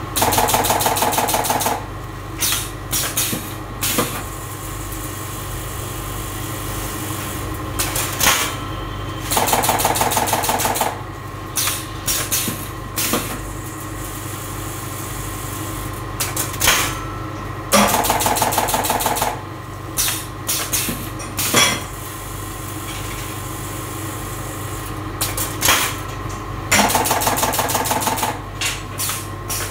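Automatic pouch packaging machine running: a steady motor hum, with a rapid rattling burst of a second or two about every nine seconds as it cycles. Sharp mechanical clacks come between the bursts.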